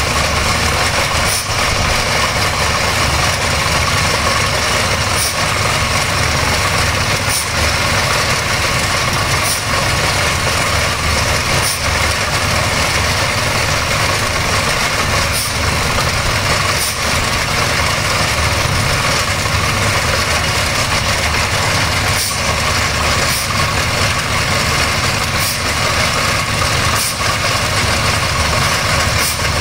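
Borewell drilling rig running steadily while drilling a water well, its engine and drilling gear making a continuous loud din. Short sharp clicks come every second or two.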